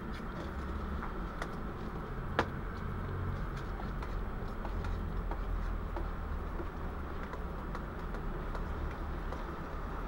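A spoon stirring tomato soup in a metal mug, with one sharp clink about two and a half seconds in and a few faint ticks after it, over a steady low background rumble.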